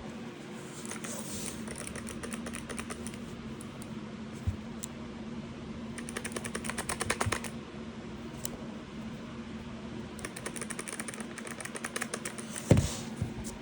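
Keys of a Lemokey P1 Pro mechanical keyboard being pressed in three quick runs of rapid clicking, with a single knock in between and a louder knock near the end.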